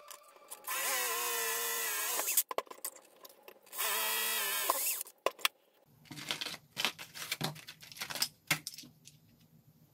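Cordless drill boring into an aluminum bar clamped in a vise, in two runs of about a second and a half and a second, its motor whine sagging and wavering in pitch under load. After that come scattered small metallic clicks and clinks of parts being handled.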